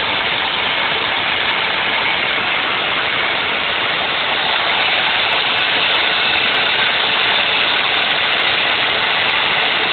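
The router motor of a wood-framed CNC router runs steadily as it cuts a sheet, together with a shop vacuum drawing dust through a hose held at the bit. The result is a loud, unbroken machine noise that holds level throughout.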